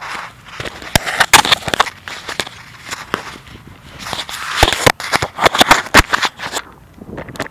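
Handling noise from a phone: fingers rubbing and knocking on the casing over the microphone, an irregular run of crackles, scrapes and clicks that dies down near the end.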